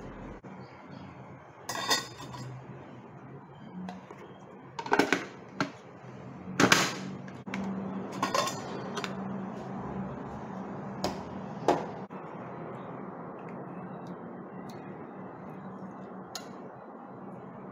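Stainless steel lids of a thermal cooker pot being put on and lifted off: about seven metal clanks and clinks over the first twelve seconds, a couple ringing briefly. After that only faint handling.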